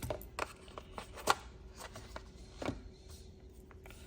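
A few light clicks and taps from handling a silicone watch band's metal connectors and stainless steel buckle, the sharpest a little over a second in.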